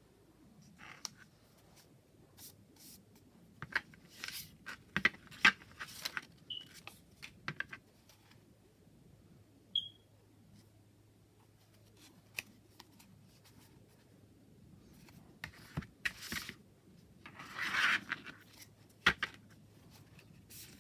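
Hands handling a tarot deck and its packaging: scattered taps and clicks of cards and box, with a longer rustling scrape a little before the end.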